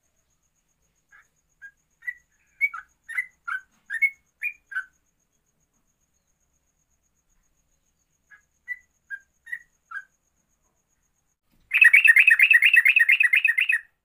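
Yellow-vented bulbul (trucuk) singing: two loose phrases of short, clear whistled notes. Near the end it breaks into a loud, fast rolling trill of about nine notes a second that lasts about two seconds, the 'ropel' run of trucuk song.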